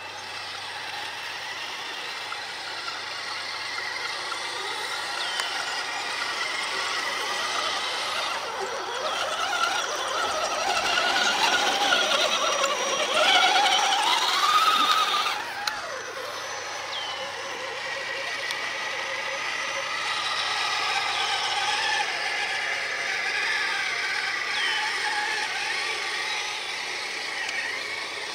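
Electric RC crawler trucks' motors and geared drivetrains whining as they crawl over dirt and through grass, the pitch rising and falling with the throttle. It is loudest about halfway through, with a rising whine, then drops off suddenly about fifteen seconds in.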